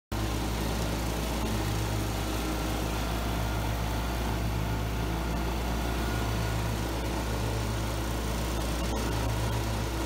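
Riding lawn mower engine running steadily while mowing grass.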